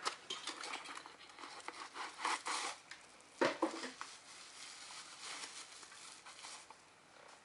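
Plastic wrapping crinkling and rustling, with scattered clicks and a firmer knock about three and a half seconds in, as a replacement PS4 power supply unit is handled.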